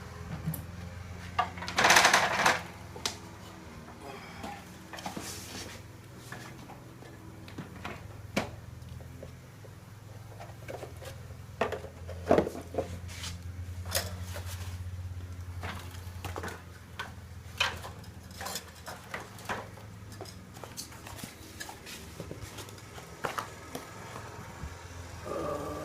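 Irregular knocks, clicks and scrapes of hand work up in a garage ceiling, with a loud clatter about two seconds in, over a steady low hum.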